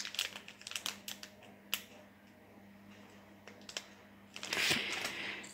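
A small plastic bag of metal bead caps being handled in the hands: scattered light clicks and crinkles, a short lull, then denser crinkling near the end.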